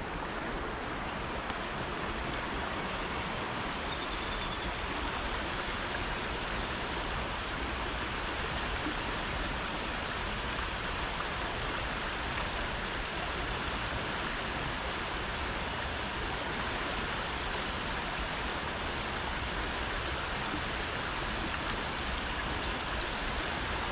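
Steady rushing of flowing river water, an even unbroken hiss.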